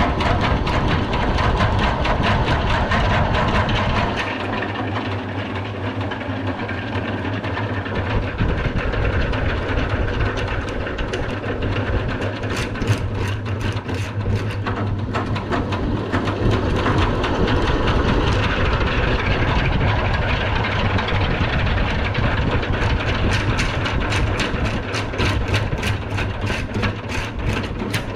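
Hand-crank honey extractor spinning frames of uncapped honeycomb, running steadily with a fast rattle as the honey is slung out of the cells. It drops a little in level for a few seconds about four seconds in, then picks back up.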